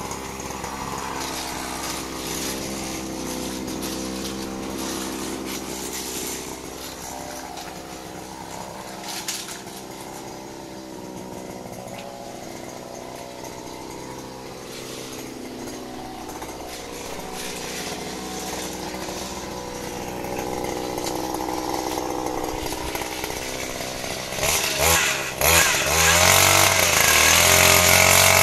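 Small petrol engine of a wheeled earth auger running steadily, then revving up about three-quarters of the way through and running louder near the end as the auger bit drills a post hole.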